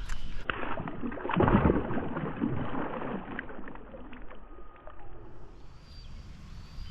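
Water sloshing and splashing with scattered knocks, loudest in the first half and then dying down.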